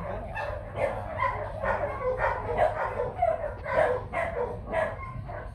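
Dogs barking and yipping in a quick run of short calls, about two or three a second.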